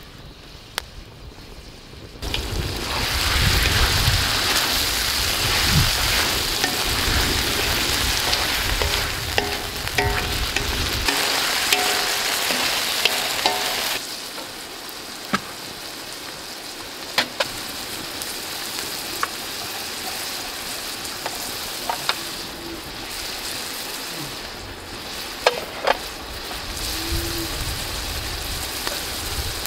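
Meat frying in a large iron wok over a wood fire, sizzling and stirred with a wooden spatula that scrapes and taps the pan. The sizzle comes in loud about two seconds in and drops quieter about fourteen seconds in, with scattered clicks of the spatula.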